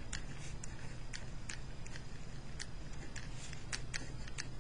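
Pen writing on lined notebook paper: an irregular run of short scratches and ticks, a few a second, as letters are written.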